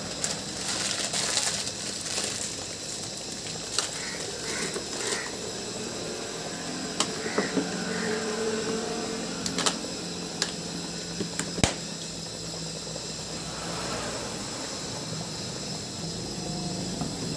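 A utensil knocking and clicking now and then against a cooking pot, over a steady hiss.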